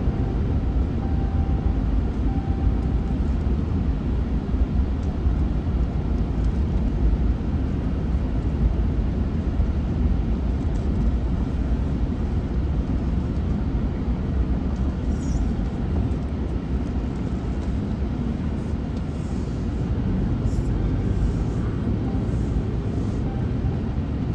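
Steady low rumble of a vehicle engine running, with no clear changes in pitch or level.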